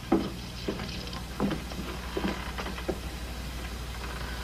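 Kitchen clatter: a few light, irregular knocks of kitchenware, spread over the seconds, over a steady low hum from an old film soundtrack.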